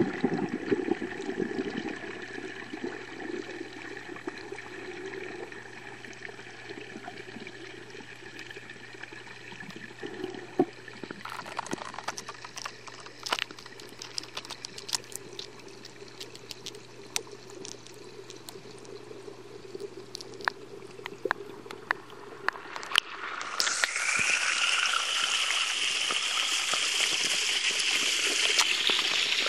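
Muffled underwater sound in a garden pond: a steady low hum with scattered small clicks and ticks. About three-quarters of the way through, the loud, steady splash of a small waterfall pouring into the pond cuts in suddenly.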